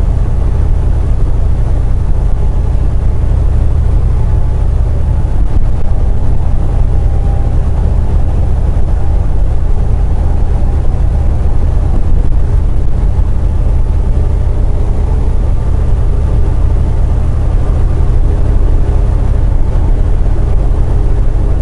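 Steady low drone of a semi truck driving at highway speed: engine and road noise heard inside the cab.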